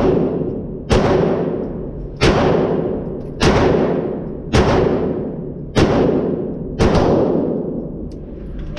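An Atlas Gunworks pistol firing a slow string of about seven shots, roughly one a second. Each shot has a long echo off the walls of the indoor range. The shooting stops about seven seconds in.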